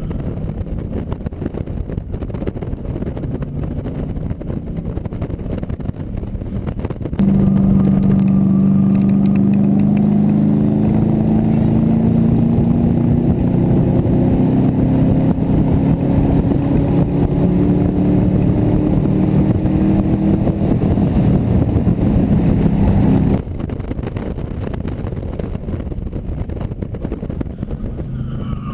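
AC Cobra Mk IV's V8 engine running hard under acceleration. About seven seconds in it jumps louder, its pitch climbing, dropping at a gear change, then climbing again, and it cuts back to a lower level near the end.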